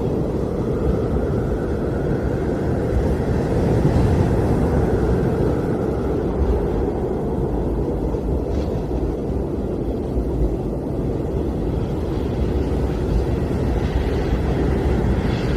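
Blizzard wind blowing as a steady low rush with gusts, and a faint whistle that swells and fades in the first few seconds.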